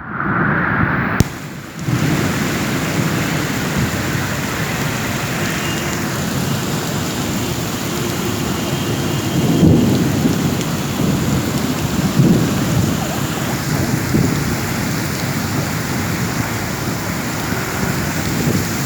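Heavy rain pouring down in a steady, dense wash, with a couple of louder low surges around the middle.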